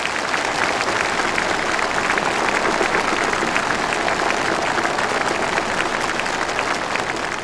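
Large crowd of uniformed officers applauding: dense, steady clapping.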